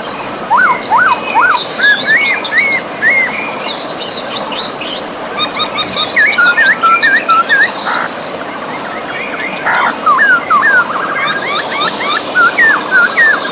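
Steady rush of river water with several songbirds singing over it: bouts of quick upswept chirps and fast trills, in three spells with short lulls between them.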